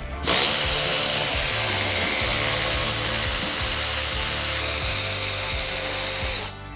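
Cordless power ratchet running steadily with a high whine for about six seconds, then stopping suddenly, as it spins out the bolts that hold an aircraft wheel's two halves together.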